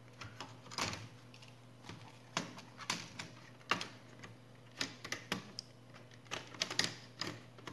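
Irregular plastic clicks and taps as a Sony Vaio laptop's touchpad plate is handled and fitted back onto the chassis, a few louder snaps among lighter taps.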